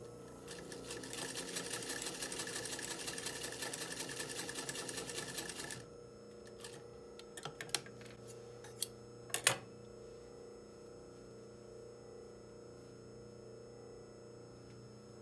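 Vintage Singer sewing machine stitching at a fast, even rate for about five seconds, then stopping. A few sharp clicks follow over the next four seconds, the loudest just before the midpoint, as scissors are taken up from the machine bed.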